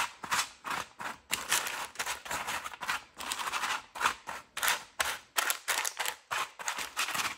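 White-chocolate-coated cereal and pretzel mix being spread into a single layer on parchment paper over a cookie sheet: repeated crinkling scrapes and clicks, about two or three a second.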